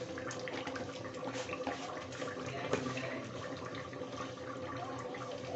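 Liquid simmering in an open aluminium pressure cooker of mutton and broth, with a steady crackle of small bubbling ticks and a faint steady hum underneath.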